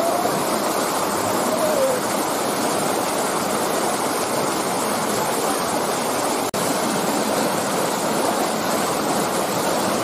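Steady rush of white water from a jungle stream tumbling over rocks into a pool, with a momentary break about six and a half seconds in.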